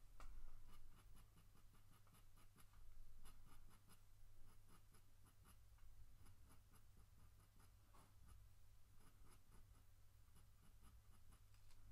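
Faint scratching of a coloured pencil on drawing paper in quick short strokes, about four a second, in runs with brief pauses.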